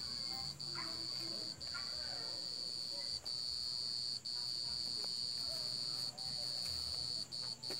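A cricket trilling: one continuous high-pitched trill, broken now and then by short pauses.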